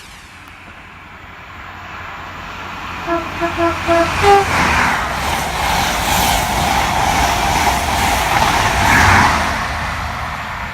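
Train horn giving four short toots followed by a slightly higher, longer note, as a train approaches and passes at speed. The rushing noise of the train builds and stays loud, peaking near the end.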